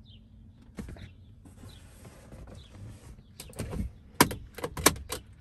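Jeep SRT8 door being handled and shut: a click about a second in, some rustling, then a run of sharp knocks and clicks, the two loudest about four and five seconds in.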